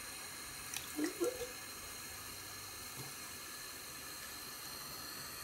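Bathroom faucet running a thin stream of water into the sink basin, a steady hiss, with a couple of brief small sounds about a second in.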